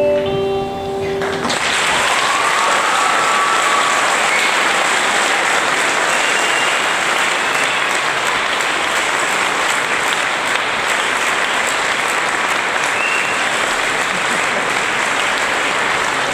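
The last held note of an acoustic guitar and vocal song stops about a second and a half in. An audience then applauds steadily, with a few whistles.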